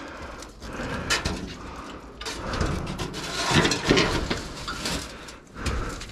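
Sheet-metal chimney pipe and rain cap scraping, clicking and knocking as they are slid and fitted back onto the flue pipe, with rustling from handling.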